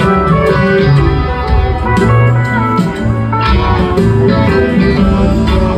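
Live band playing a guitar-led instrumental jam over bass and drums, with sustained electric guitar notes and steady cymbal strokes, recorded loud from the crowd.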